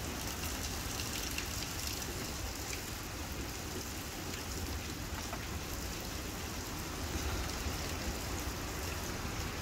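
Steady heavy rain falling and splashing on the street and surroundings, an even hiss with a low rumble underneath.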